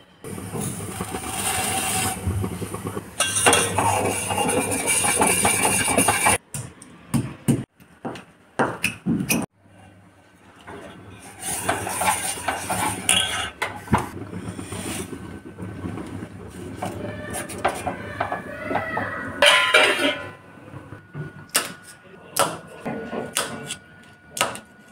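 Kitchen work sounds: a metal spoon clinking and scraping as it stirs milk in a steel pan. Near the end a knife taps sharply on a stone countertop, chopping cashews.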